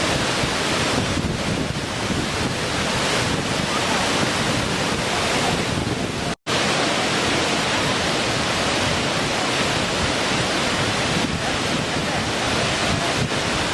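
Small waterfall running with a steady rush of falling and splashing water. The sound cuts out for an instant about six seconds in.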